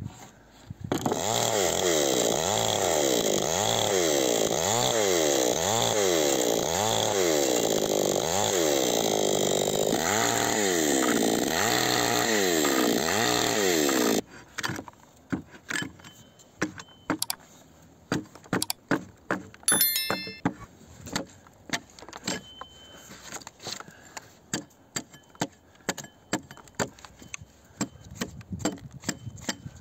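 Chainsaw running for about thirteen seconds, its pitch rising and falling about once a second, then cutting off abruptly. After that, an axe hewing a pine log: a series of sharp chopping knocks.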